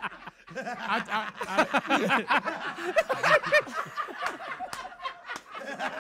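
Several men laughing together, with bursts of laughter overlapping one another.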